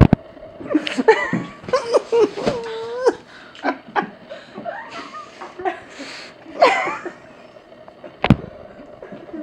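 People laughing and giggling in a small room, in short bursts, with two sharp clicks, one at the start and one near the end.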